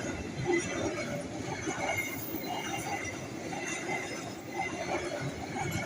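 A train rolling past, its wheels running steadily on the rails.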